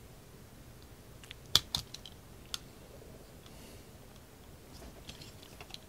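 Automatic wire stripper clicking as its jaws clamp and strip insulation from a wire end. A quick cluster of sharp clicks comes about one and a half seconds in, then a few faint clicks near the end.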